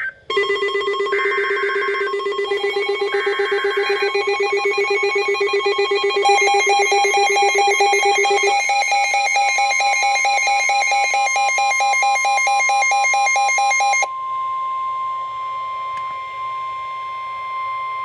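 Emergency Alert System warning tones. Two short bursts of the SAME digital header's data screech come in the first few seconds. They sit over a steady high NOAA Weather Radio-style warning tone layered with several fast-pulsing electronic alarm tones that build up and cut off about 14 seconds in. The steady warning tone then sounds alone.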